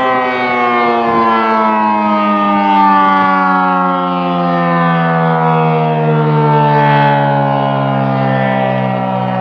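ACA Cyclone 125 dual-tone civil defense siren sounding a loud, steady chord that slides slowly down in pitch, swelling and fading gently every few seconds.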